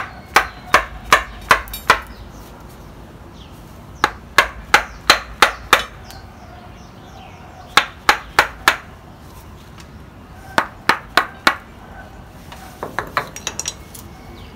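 Wooden mallet striking a chisel that carves wood out of a bonsai trunk's apex neck: bursts of four to six sharp knocks at about three a second, then a run of lighter, quicker taps near the end.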